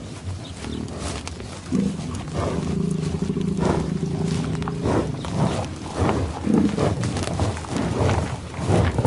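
Cattle lowing: one long, low, steady moo of about three seconds starting near two seconds in, followed by shorter calls and knocks.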